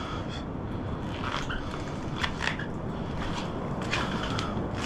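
Footsteps scuffing and tapping on a rock ledge: a few scattered scrapes and taps over a steady low rumble.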